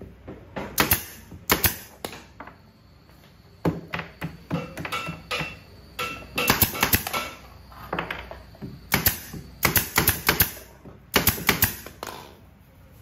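Nailing into a wooden subwoofer cabinet: clusters of quick, sharp strikes, several a second, with short pauses between clusters.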